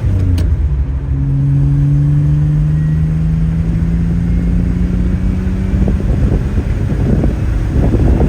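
Car engine and road noise heard while driving, the engine note rising slowly and steadily as the car accelerates, then turning rougher and less even near the end.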